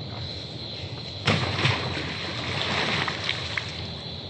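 A yellow fishing float on a line hits the river with a sudden splash about a second in, a second splash just after, then water sloshing as it settles. Insects keep up a steady high trill throughout.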